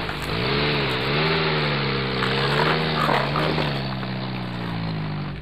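A truck engine sound effect running, its pitch dipping and rising twice in the first second, then holding steady and slowly sinking.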